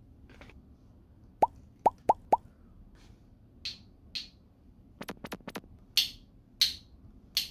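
Four quick rising pops in a row, then a rapid run of sharp clicks about five seconds in, with short hissy rustles in between.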